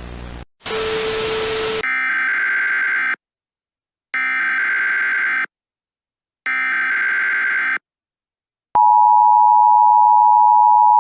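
Emergency Alert System broadcast tones: a short low buzz, then a second of static with a steady low tone, then three harsh digital data bursts (the SAME header), each about a second long with about a second between them. About nine seconds in, the steady two-tone attention signal begins, louder than the rest.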